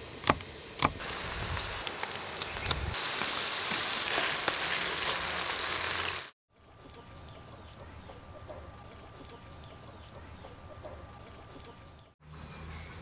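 Two knife chops on a wooden cutting board, then silkworm pupae deep-frying in bubbling oil: a loud, even sizzle that cuts off suddenly about six seconds in. A quieter steady hiss follows.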